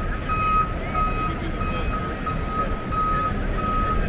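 Vehicle backup alarm beeping repeatedly, about two beeps a second, each a steady single-pitched tone, over low street rumble.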